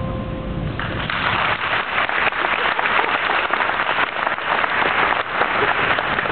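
Audience applauding, the clapping swelling in about a second in and going on steadily. A few ringing tones fade out just before it starts.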